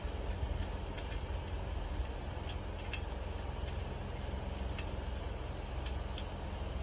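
Steady low background rumble with a few scattered faint clicks as a nut is hand-tightened on the joint of a metal adjustable dog-bowl stand.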